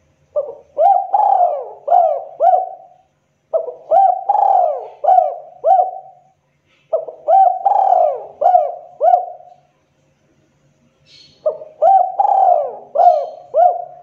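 Spotted dove (tekukur) cooing: four phrases of about five quick coos each, a second or so apart. It is the sharp call of a dove in breeding condition.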